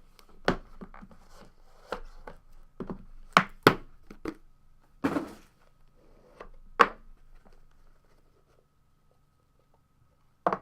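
A trading-card box and its packaging being handled and opened: a run of sharp taps and knocks with some rustling of cardboard and wrapping, then a few quiet seconds and one more sharp knock near the end.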